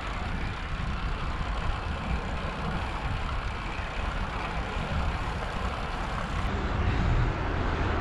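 Steady wind rush and road noise while riding a road bike along tarmac, the wind buffeting the bike-mounted camera's microphone with a constant low rumble.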